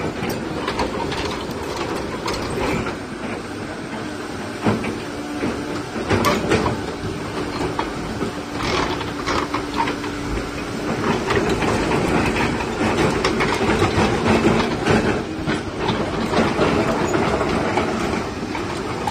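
A Doosan DX225 crawler excavator working hard, its diesel engine running under load and its hydraulics pushing the bucket into the ground to tilt the machine and lift one side. Frequent metal clanks and rattles come from the steel tracks and pins, a steady tone holds for several seconds near the middle, and the whole gets louder in the second half.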